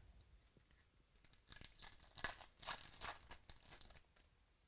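A trading card pack's plastic wrapper being torn open and crinkled: a run of quick crackles lasting about three seconds, starting about a second in.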